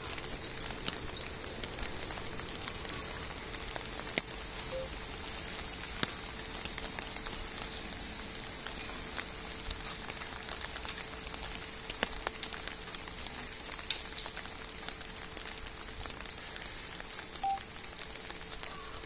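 Light rain pattering and hissing, with scattered sharp ticks of drops and a steady faint hum underneath.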